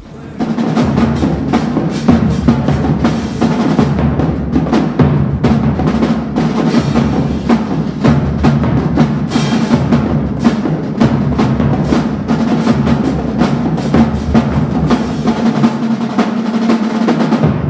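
Marching drumline of bass drums, snare and multi-tenor drums playing a fast, loud cadence: rapid snare and tenor strokes over pounding bass drum hits. The drumming starts about half a second in, and the bass drums drop out briefly near the end.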